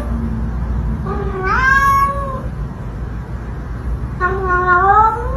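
Domestic cat meowing: two long meows that rise in pitch, about a second in and again near the end, over a low steady hum.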